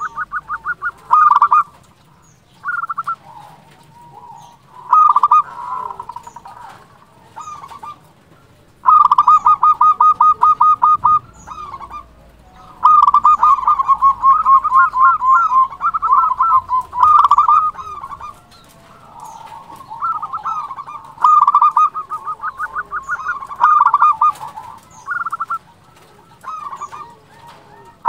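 Zebra dove (perkutut) singing: rapid staccato cooing notes in short phrases and in longer rattling runs of several seconds, with short pauses between.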